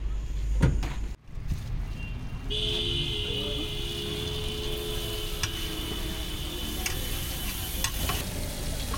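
Hot oil sizzling as food deep-fries, with a steady high whine running alongside from about two and a half seconds in and a few light clicks. Before a cut about a second in, a low rumble of street traffic.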